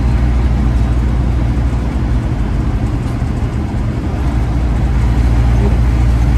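Steady diesel engine drone and road noise heard inside the cab of a Freightliner Classic XL semi truck under way.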